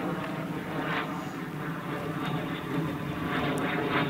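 Railway level crossing's electronic warning bell ringing on and on over a steady drone, the signal that a train is approaching.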